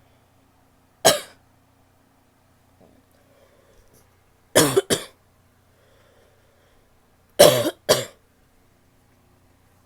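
A woman coughing wetly: one cough about a second in, then two pairs of coughs.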